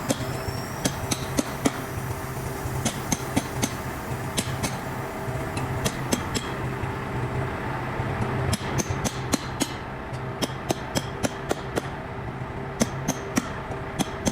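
Hammer blows on metal: a quick, irregular series of sharp ringing strikes, a few a second, over a steady low machine hum.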